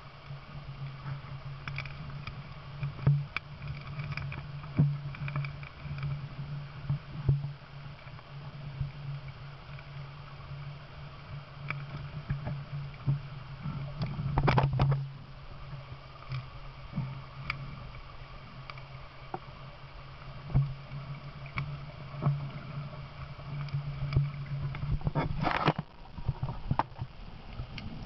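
Underwater sound picked up by a submerged camera: a steady low hum with scattered clicks and knocks, a louder knock about halfway through and a short flurry of knocks near the end.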